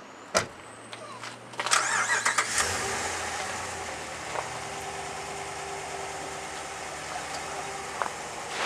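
A vehicle engine being started: a click, about a second of cranking that catches, then the engine settles into a steady idle.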